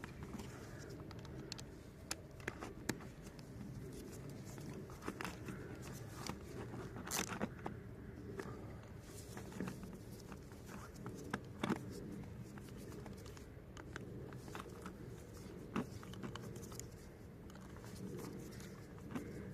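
Scattered light clicks and knocks over a steady low hum, with a few sharper clicks standing out.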